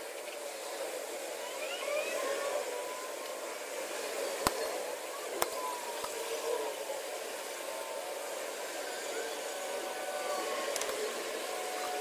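A steady hiss with faint chirps in it, and two sharp clicks about a second apart near the middle.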